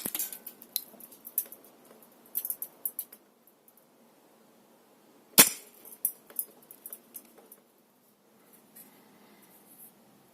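Snow Wolf M24 spring-powered airsoft sniper rifle shots at a metal kitchen strainer: one sharp crack right at the start and another about five seconds in, each followed by a second or two of small clicks and rattles.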